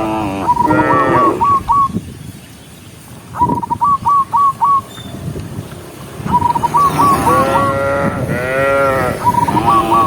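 Cattle mooing: several drawn-out, bending moos from the herd. A whistled call, one held note then four or five quick hooked notes, repeats about every three seconds between the moos.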